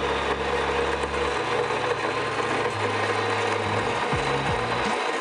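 Quick Mill 060 EVO electric coffee grinder with 43 mm hardened-steel flat burrs running steadily, grinding a single timed dose of beans fine for espresso.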